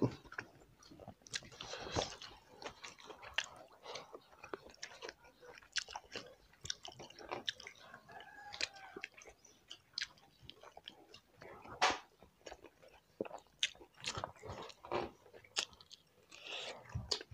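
Several people chewing mouthfuls of chicken gizzard curry and rice eaten by hand, heard as a run of irregular short clicks.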